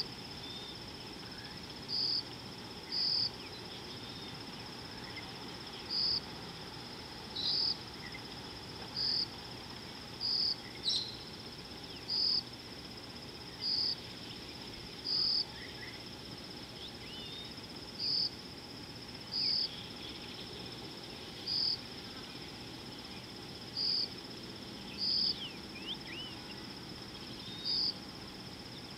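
Insects calling in a steady high-pitched drone, with a louder high pulse of calling repeating every one to three seconds. Faint bird chirps come through now and then.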